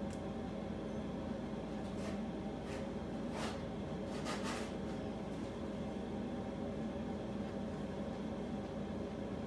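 A steady appliance hum in a kitchen, with a few short rustles and scrapes from hands working at the counter while skewering meat, bunched together a couple of seconds in.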